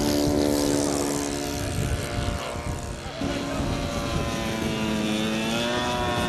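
Engine and propeller of a large radio-controlled aerobatic biplane in flight, the engine note rising and falling with the throttle through the manoeuvres. About three seconds in the note breaks off and picks up again at a different pitch.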